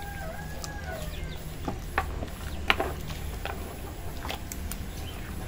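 An animal's drawn-out call over the first second or so, then a few sharp clicks and knocks, over a steady low hum.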